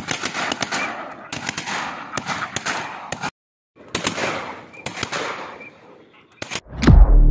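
Several shotguns firing in rapid, overlapping volleys at a flock of ducks flying overhead, the shots thinning out toward the end. Near the end a loud, deep electronic music tone cuts in.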